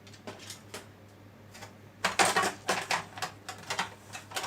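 Projector parts being handled: a few faint clicks, then a quick run of sharper clicks and knocks from about two seconds in.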